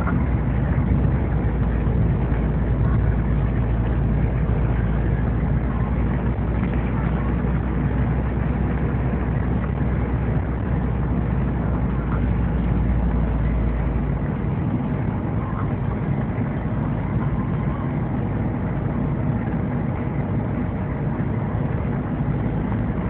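Wind buffeting the microphone during fast ice skating: a steady rushing noise with a deep rumble, the deepest part of which drops away about fourteen seconds in.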